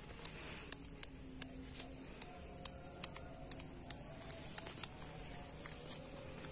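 Sharp ticks, about two or three a second, over a steady high-pitched hiss.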